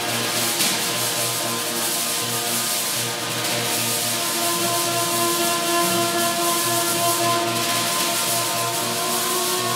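Live ambient music: an electric guitar through effects pedals holds sustained, layered drone notes over a low pulse that repeats about three times a second. A snare drum is being rubbed and scraped on its head, giving a steady hiss-like noise under the guitar.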